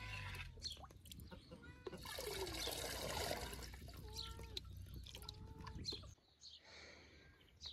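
Liquid scooped from a plastic bucket with a plastic jug and poured through a mesh strainer into a cast-iron pot, splashing and trickling, loudest a couple of seconds in.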